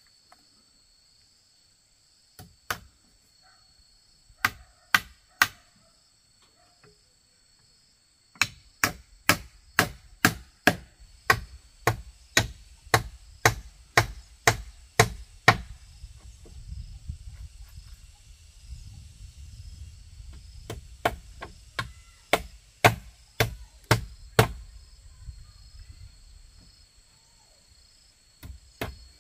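Sharp knocks of a hand tool striking bamboo: a few scattered blows at first, then a steady run of about two a second for several seconds, then more blows after a break. A low rumble sits underneath through the middle, and a steady high insect drone runs throughout.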